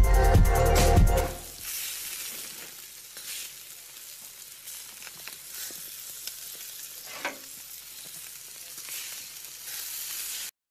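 A low boom with ringing tones fades out over the first second and a half. Then a flaming grill gives a steady sizzling hiss with small scattered crackles, which cuts off abruptly near the end.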